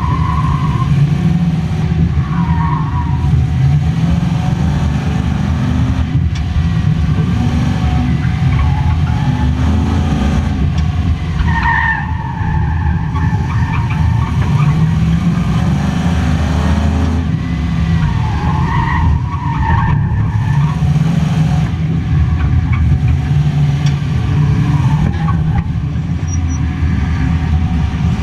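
A car's engine is driven hard through an autocross course, its pitch rising and falling as it accelerates and lifts between corners. The tyres squeal briefly in the corners several times, with the longest squeals around twelve seconds and around nineteen seconds in.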